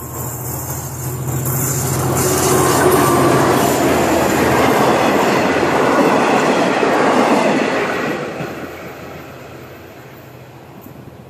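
V/Line passenger train passing at close range: the rumble and clatter of its carriage wheels on the rails swells over the first couple of seconds, holds loud, then fades away after about eight seconds.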